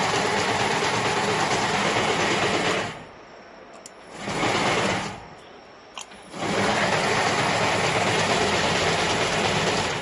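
KBL-48-120 wire harness braiding machine running with a dense mechanical clatter from its moving bobbin carriers. It winds down about three seconds in, runs again briefly around four seconds, then after a click runs from about six and a half seconds until it stops near the end.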